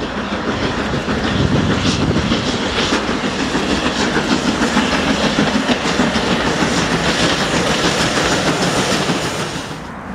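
Steam-hauled passenger train passing close by, its coach wheels clattering over the rail joints. The sound drops away sharply near the end.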